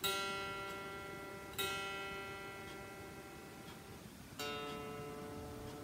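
Electric guitar strings plucked one at a time and left to ring while being tuned by ear against a clip-on tuner. There are three notes: two of the same pitch about a second and a half apart, then a lower, different note near the end. Each fades away slowly.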